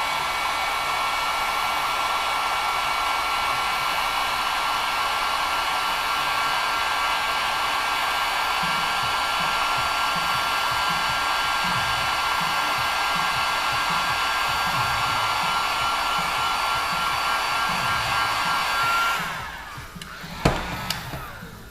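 Heat gun blowing steadily with a thin whine from its fan while it shrinks heat shrink tubing. It is switched off about nineteen seconds in and fades out, and a single knock follows about a second later.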